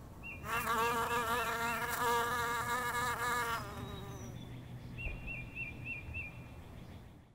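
Flying insect buzzing, a drone whose pitch wavers up and down, loud for about three seconds and then fading away. A thin, high warbling chirp sounds twice, near the start and about five seconds in.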